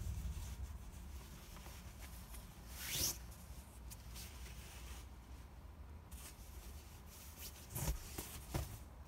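Nylon shell of a packed down blanket rustling and swishing as it is slid out of its stuff sack and unfolded, over a low steady rumble. The loudest swish comes about three seconds in, with two shorter ones near the end.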